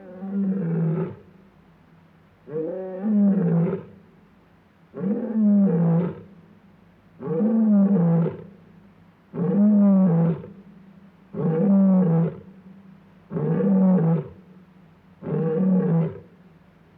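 Lion roaring in a steady series of calls, about one every two seconds, each a little over a second long and falling in pitch.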